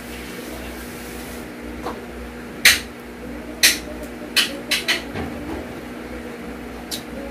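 Close-up eating sounds: about six short, crisp clicks and crackles, scattered through the middle of the stretch, over a steady low hum.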